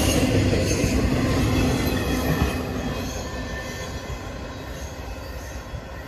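Norfolk Southern intermodal freight train's double-stack well cars rolling past, steel wheels running on the rails. The sound fades from about halfway through as the end of the train passes and moves away.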